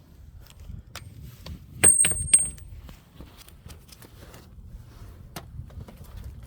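Metal hand tools clinking and ticking against engine parts while a pulley is being taken off, with two loud, sharp metallic clanks that ring briefly about two seconds in.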